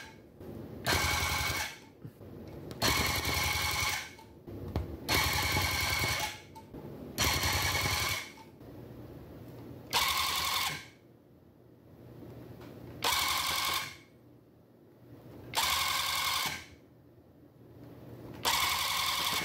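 Electric tufting gun running in short bursts of about a second each, eight times, its needle stroking rapidly as it punches yarn into the backing cloth, with short pauses between runs while it is repositioned to fill small petals.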